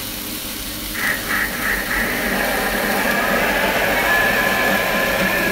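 A Thermomix food processor's motor starting up about a second in and then running steadily at speed, puréeing toasted onion with water and beef stock into a sauce.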